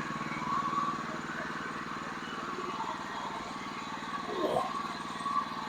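A sawmill's engine running steadily. About four and a half seconds in, a brief sound sweeps steeply down in pitch.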